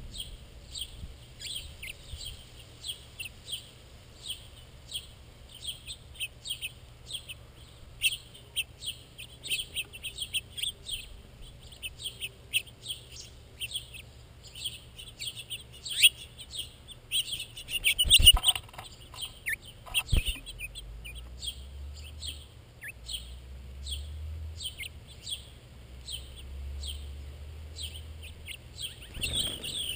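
Continuous rapid chirping of house finches, many short chirps a second. Two sharp knocks come a couple of seconds apart about two-thirds of the way through, and a low rumble sits underneath near the end.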